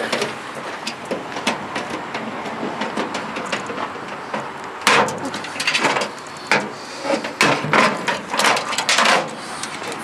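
Clicks, knocks and rattles of a microwave oven's sheet-metal case and internal wiring being pulled at and handled during scrapping, with a sharp snap about five seconds in followed by a quick run of knocks.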